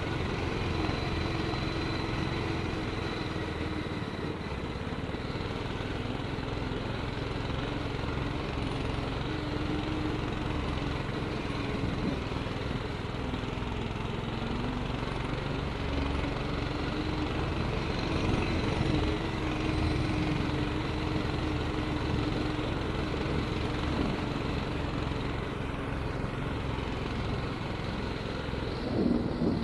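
Small engine of a motorized snow tow sled (motobuksirovshchik) running steadily under way, its pitch drifting slightly up and down.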